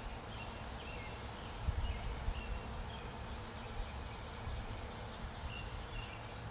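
Faint outdoor porch ambience: a steady low rumble that swells briefly about two seconds in, with short, high chirps recurring every second or so.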